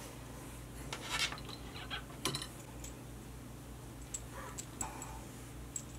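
Small metal hardware, a stainless steel shackle and O-ring, clinking lightly as it is handled, with brief rubbing of paracord being pushed through the ring. There are a few scattered light clicks and short rubs.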